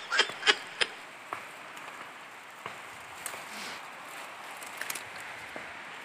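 A person's rapid laughter tailing off in the first second. After it comes the steady rush of a shallow river running over rocks, with a few faint rustles and ticks from movement through the ferns.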